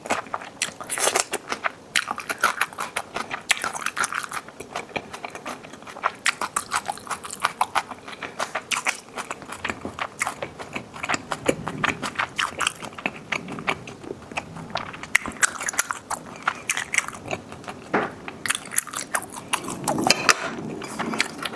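Close-miked mukbang eating sounds: a person biting and chewing food, with quick, irregular wet clicks and crunches.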